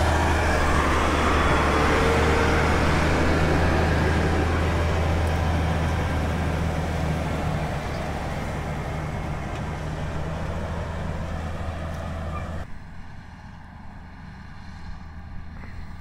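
Tractor engine running steadily while pulling an 11-leg seed drill through wet, heavy soil, with a broad rushing noise over its low hum; the drill is taking some pulling. About three-quarters of the way through, the sound cuts suddenly to a much quieter, lower hum.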